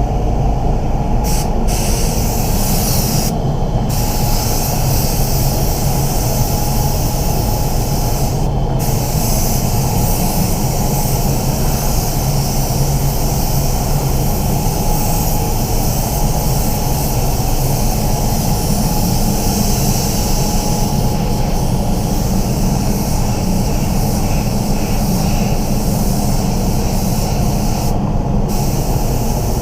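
Spray booth fans running with a steady low rumble, under the hiss of an ANI R150 mini spray gun's compressed air laying down base coat. The hiss stops briefly a few times as the trigger is let off.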